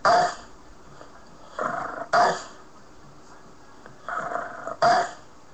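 Olde English Bulldogge breathing loudly and snorting close up, three paired in-and-out snorts about two and a half seconds apart.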